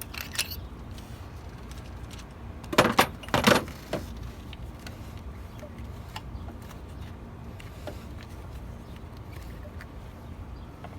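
Metal hand tools clinking and rattling as they are handled: a click near the start and two short rattles about three seconds in, over a steady low hum.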